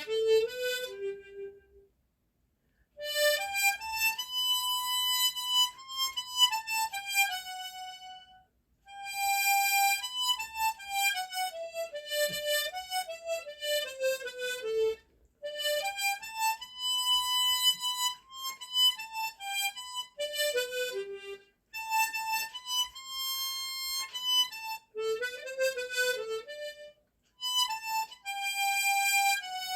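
Tremolo harmonica playing a slow melody solo, in phrases of several seconds separated by short pauses.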